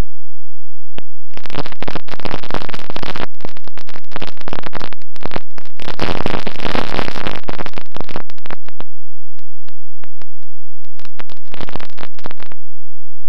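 Harsh hiss-like noise cutting in and out abruptly in irregular bursts over a steady low hum, typical of a noisy audio feed.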